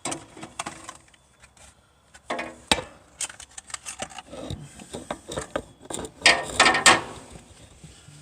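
Hand tools working on the engine during spark plug removal: a socket ratchet clicking, with metal clinks and knocks. The busiest, loudest stretch of rapid clicking comes a little after six seconds in.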